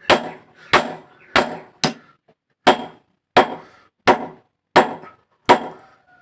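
Blacksmith's hammer striking steel on an anvil while forging a hoe blade from scrap channel steel. It lands about nine blows at roughly one every 0.7 seconds, each a sharp clank with a brief metallic ring, with a slightly longer pause about two seconds in.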